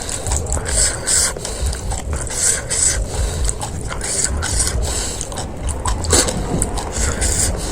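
Eating panipuri: crisp puri shells crunching and being chewed, in repeated short bursts about once or twice a second, over a steady low rumble.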